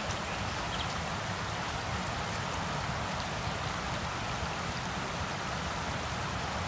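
Shallow stream running over stones, a steady rush of water.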